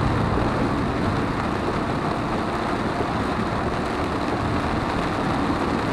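Steady road noise inside a car driving in heavy rain: tyres running on the wet, water-covered highway and rain on the car, an even rumble and hiss.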